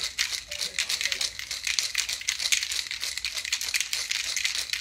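Ice cubes rattling hard inside a glass cocktail shaker with a metal cap, shaken rapidly and without pause to chill a vodka and dragon fruit cocktail.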